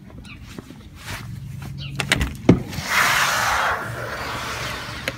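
A few clicks and a sharp knock, then about a second of scraping noise that slowly fades: a wooden tack locker being opened.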